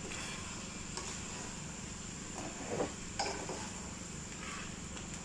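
Chunks of upo (bottle gourd) being stirred into sauce in a metal pan: a few short scrapes and clinks of the spoon against the pan, over a steady low hum.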